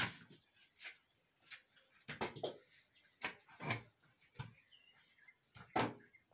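A string of sharp wooden knocks and clatters: a loose wooden plank being stepped over, lifted and set down at a doorway, and a wooden door bumping. The loudest knock comes near the end.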